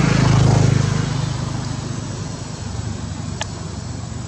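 A motor vehicle's engine passing by: a low hum, loudest about half a second in, then fading away. A single sharp click comes near the end.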